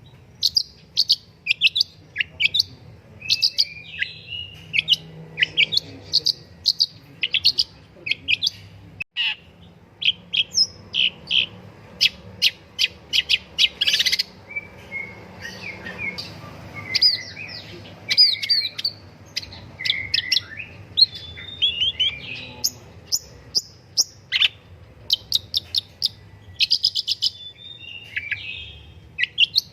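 Long-tailed shrike singing continuously: a rapid, varied series of sharp chirps and quick downward-sweeping whistled notes, broken by harsher chattering phrases.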